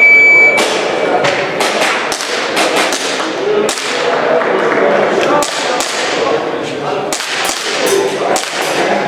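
A shot timer's start beep, one high steady tone of about half a second, then an airsoft pistol firing a fast, irregular string of shots for the rest of the stage run.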